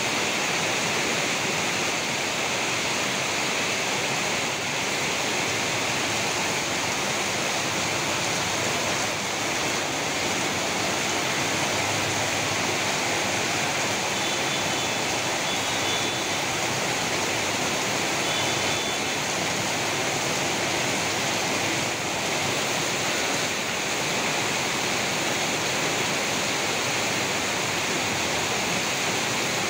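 Heavy tropical rain pouring down on a street, a dense, even hiss that holds steady throughout.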